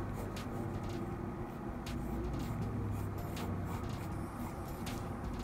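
Mechanical pencil sketching on sketchbook paper, a series of short scratchy strokes, over a steady low rumble.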